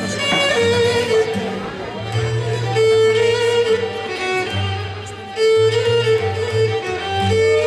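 Cretan lyra being bowed, playing a melody of long held notes linked by quicker ornamented runs, over low sustained bass notes.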